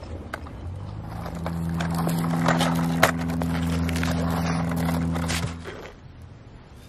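Toy garbage trucks pushed by hand, with plastic wheels crackling and scraping over wood and dirt, under a steady low engine-like drone that starts about a second in, steps up in pitch, holds for about four seconds and fades out near the end.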